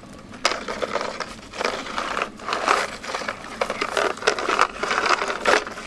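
A rusty metal chain rattling and clinking as it is handled and lifted, starting about half a second in.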